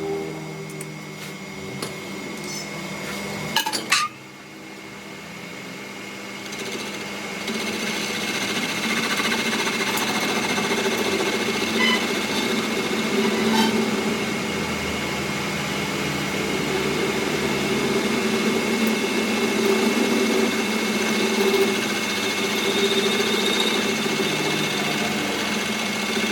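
A workshop machine running steadily with a constant hum, with a few sharp knocks in the first four seconds; it grows louder about seven seconds in and stays steady.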